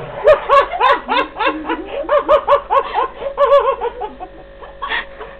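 A person laughing hard in a quick run of high 'ha' pulses, about four a second, dying away about four seconds in, with one more short laugh near the end.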